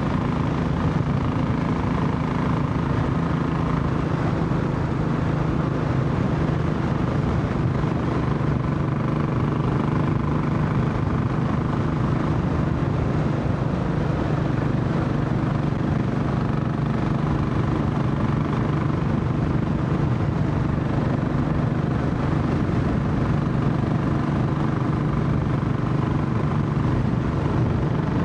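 Royal Enfield Classic 500's single-cylinder four-stroke engine running steadily under way, with small rises and falls in pitch.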